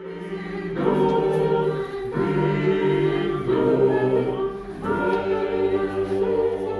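A choir of several voices singing sustained chords that change about every second or so.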